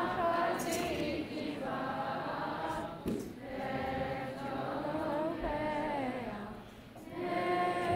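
A congregation of children singing a prayer melody together in unison, phrase by phrase, with short breaths between phrases.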